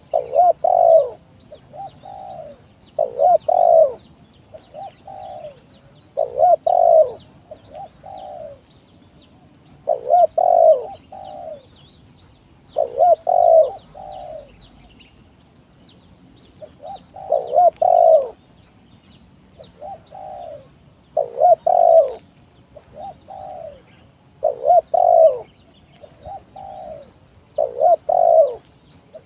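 Spotted dove cooing over and over, a lure call: a two-part phrase of soft low coos followed by louder ones, repeated about every three to four seconds. Small birds chirp faintly and continuously underneath.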